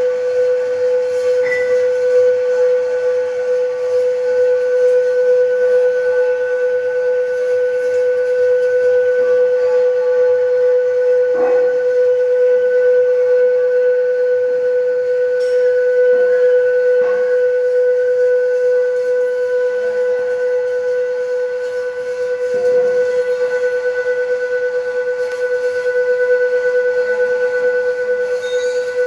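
Metal lathe running during thread cutting, giving a steady high whine with a few short clicks and knocks from the cut.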